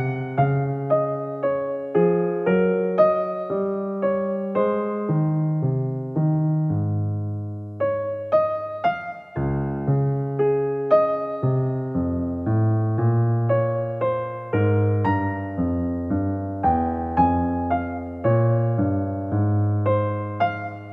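Solo piano background music, notes struck one after another and left to ring.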